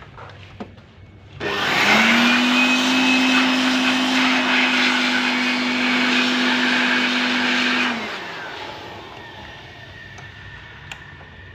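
A small high-speed electric motor starts about a second and a half in, runs steadily with a loud rushing noise over an even hum for about six seconds, then switches off and winds down.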